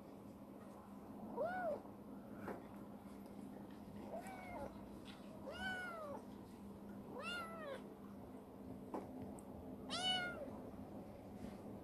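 A young female black domestic cat meowing five times, short arched calls spaced a second or two apart while it is being stroked, the last one the loudest.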